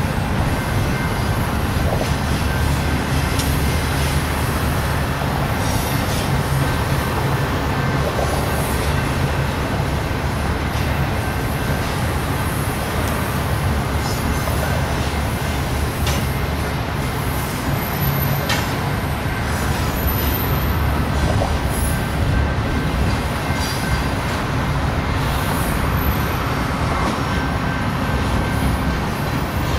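BNSF intermodal train's trailer-carrying flatcars rolling steadily past: a continuous low rumble and clatter of steel wheels on rail.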